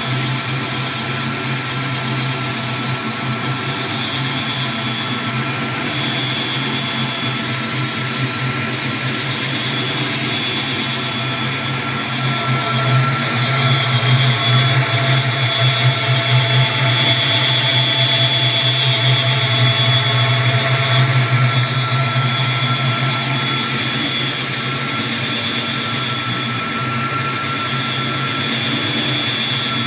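1992 Ford Mustang engine idling with a steady high-pitched whistle over it, which the owner suspects may be a vacuum leak. The sound swells louder for several seconds in the middle.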